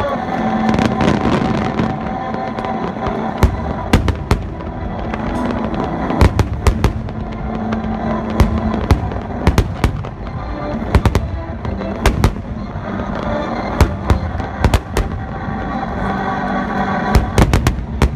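Aerial firework shells bursting in a display, about twenty sharp bangs, many in quick clusters of two to four, over a continuous crackle and rumble, with music playing underneath.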